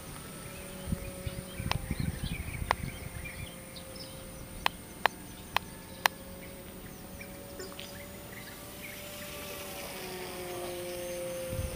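Distant whine of a small RC foam plane's motor and propeller, a steady tone that drifts in pitch and sags downward near the end as the plane passes. Scattered bird chirps and several sharp clicks in the first half sit over it.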